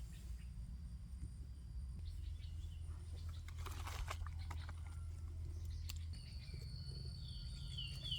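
Rural outdoor ambience: a brief rustle of vegetation midway, then a steady high insect trill that comes in about two-thirds through, and a bird's quick run of short falling chirps near the end, over a low rumble on the microphone.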